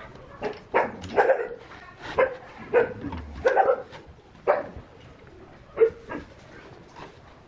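A dog barking: a string of short barks at uneven intervals that stops about six seconds in.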